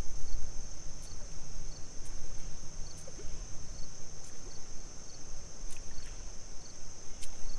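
A steady, high-pitched insect chorus drones on, over a low outdoor rumble. A few faint, sharp clicks come through about a second in, around two seconds in, and twice near the end.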